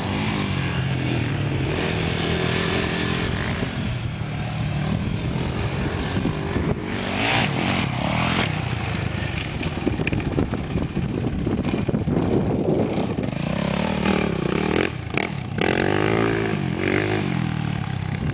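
Dirt bike engines revving as the bikes ride by, the pitch rising and falling again and again.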